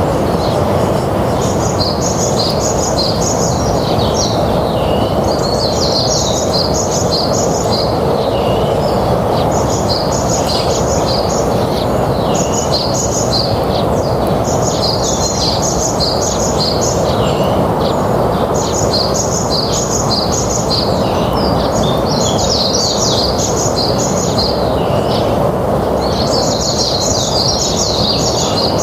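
A songbird repeating a short, fast, high chirping phrase about every two seconds, over steady background noise.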